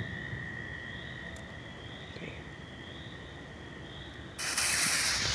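Insects trill steadily in the background. About four seconds in, a lit firework suddenly starts spraying sparks with a loud, steady hiss.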